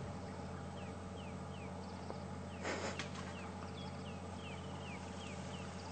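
Quiet bush ambience: a bird repeats short, high, falling whistles, with a brief crackling rustle of brush a little under three seconds in, over a steady low hum.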